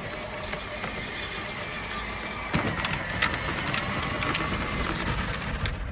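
Pink battery-powered Cadillac Escalade ride-on toy car driving, its electric motors and plastic gearbox giving a steady whine, with scattered clicks and rattles as the plastic wheels roll.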